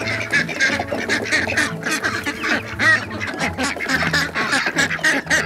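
A flock of domestic ducks quacking together in a busy, overlapping chatter as they are let out of their house and hurry down the ramp.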